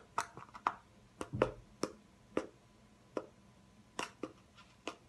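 Irregular sharp taps and clicks, about a dozen, from hands handling a plastic honey bottle close to the microphone.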